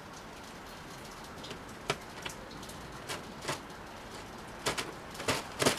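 Frost-covered plastic sheeting crackling and crinkling under a cat's paws as it walks across it: scattered sharp crackles that come faster and louder near the end.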